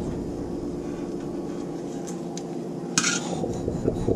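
Aluminium steamer lid and metal bowl handled at a stainless steel sink: light metal clinks, then one sharp clank about three seconds in, over a steady low hum.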